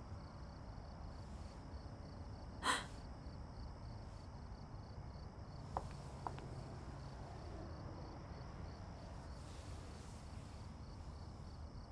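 Faint crickets chirping steadily over a low hum of room tone, with a brief soft puff of noise about two and a half seconds in and two small clicks around six seconds.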